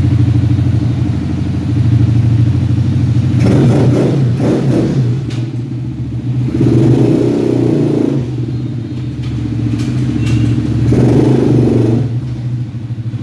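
150cc ATV engine idling, with the throttle blipped three times, about four, seven and eleven seconds in, each rev rising and falling back to idle.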